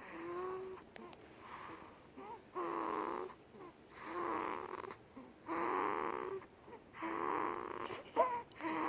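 Newborn baby snoring: about six noisy, whistly breaths, roughly one every second and a half, with a short squeaky rise near the end.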